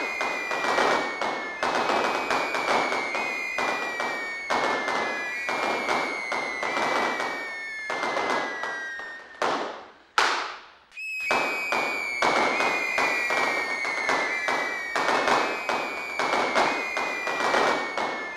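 Fireworks crackling densely, with falling whistles that repeat every second or two. About halfway through, the sound briefly drops away and one sharp bang fades out before the crackle picks up again.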